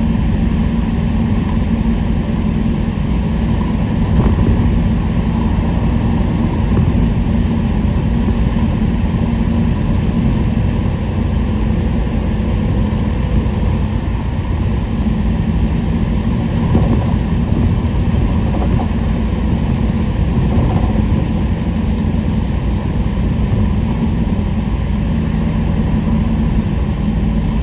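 Steady engine hum and tyre noise on a wet road, heard from inside a moving vehicle.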